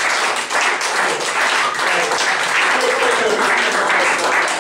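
A small group applauding, with voices talking and calling out over the clapping.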